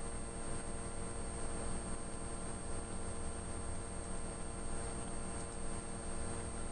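Steady electrical mains hum with a layer of hiss, the background noise of the narration's recording setup.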